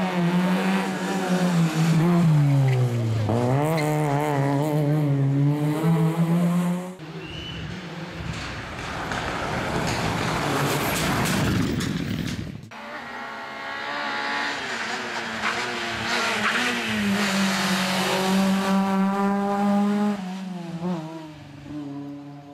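Rally cars driving hard on a stage: engines revving high, the pitch dropping and climbing again with gear changes and braking. A few seconds of loud rushing noise come in the middle, and near the end the engine sound fades away.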